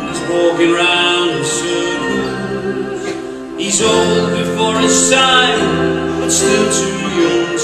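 Live musical-theatre pit band playing a slow passage of long held chords, swelling again about three and a half seconds in.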